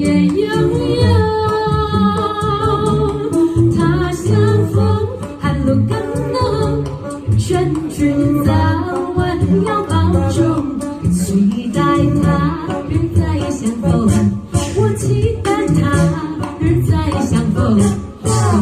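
A cappella vocal ensemble singing in close harmony, with a sung bass line and vocal percussion (beatboxing) keeping a steady beat.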